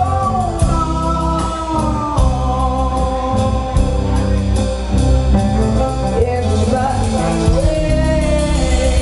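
Live rock band playing: a woman sings long held notes lead over bass, guitars, drums and keyboard.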